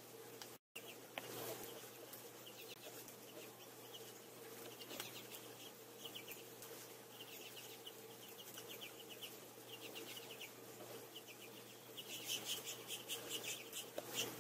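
Small finches twittering in short, rapid trills of high chips, one every second or so, louder near the end, over a faint steady low hum.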